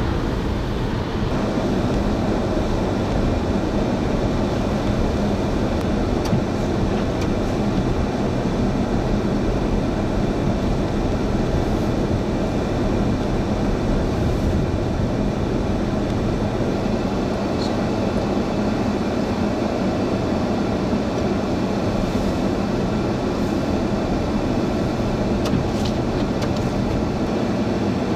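Steady, unbroken rumble of a vehicle in motion: road and engine noise with a faint steady hum.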